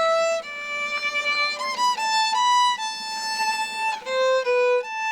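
Background music: a solo violin playing a melody one note at a time, each note held about half a second to a second, with small slides between some of them.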